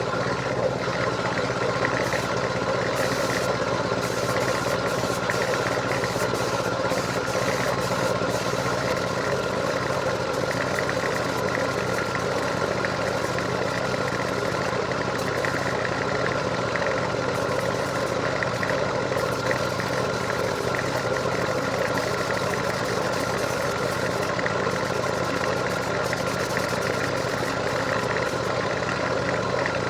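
A machine running steadily at constant speed: an even hum with a broad hiss over it, unchanging throughout.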